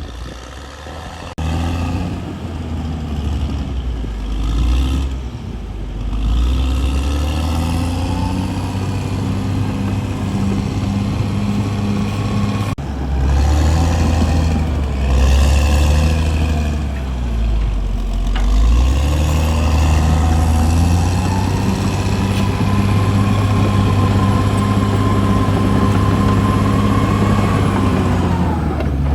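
CAT D6R bulldozer's diesel engine working under load, its pitch rising and falling repeatedly as it revs up and drops back. A steady higher whine joins in the second half.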